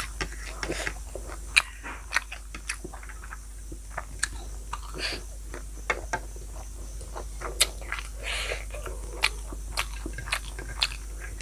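Close-up eating sounds from someone chewing food, with many sharp, irregular crunches and mouth clicks.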